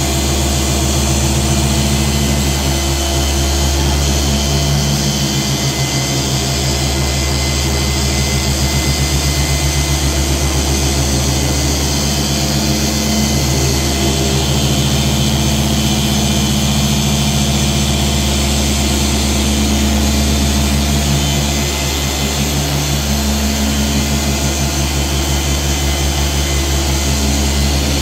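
Dual-action orbital polisher running steadily with a foam pad on car paint, a constant motor hum that wavers slightly as the pad is moved and pressed.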